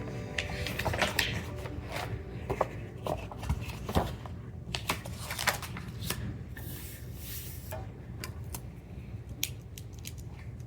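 Irregular small clicks, taps and a brief rustle of objects being handled in a small room.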